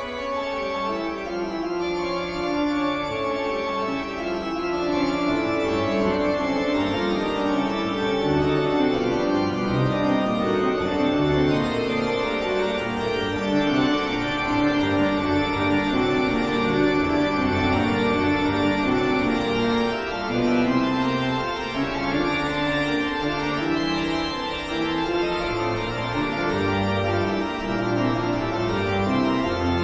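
Instrumental music led by organ: sustained chords and low bass notes shifting slowly, in the style of eerie Halloween horror background music.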